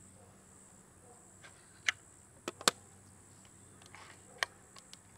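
A few sharp metallic clicks from the FX Dreamline PCP air rifle's action being cycled and handled, four in all, spread from about two seconds in to near the end, over a faint steady insect buzz.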